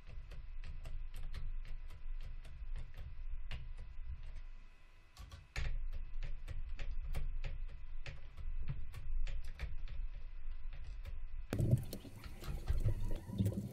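Irregular sharp clicks and taps of a small battery-powered screwdriver driving the CPU cooler's mounting screws inside a PC case, over a low rumble.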